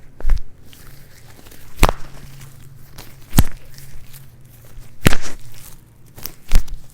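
Five sharp clicks, about a second and a half apart, from a chiropractic adjustment of the acromioclavicular (AC) joint of the shoulder.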